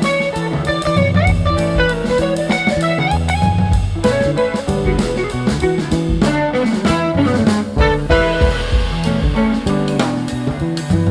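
Background music: an upbeat tune led by plucked guitar over bass and a drum kit beat.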